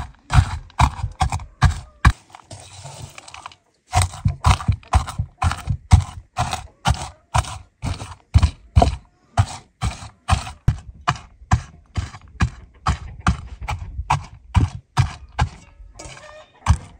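Round stone pounding walnuts against a shallow metal pan, a steady run of sharp knocks about two to three a second as the nuts are crushed. About two seconds in, the knocking stops for a couple of seconds and gives way to a softer shuffling of the crushed nuts.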